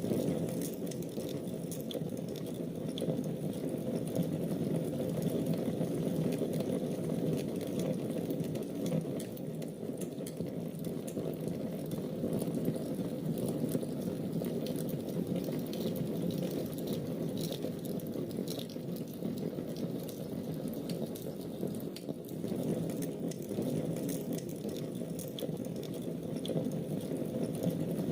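Wood fire burning steadily: an even, low rush of flames with scattered faint crackles and pops.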